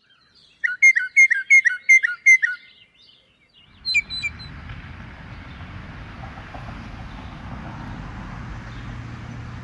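A bird call: one clear whistled note repeated six times, about three a second, then a single note a little later. A steady low outdoor rumble comes in just before that last note and carries on.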